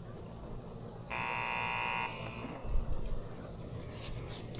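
An electronic buzzer sounds once, a steady buzzing tone lasting about a second, followed by a low thump and a few clicks.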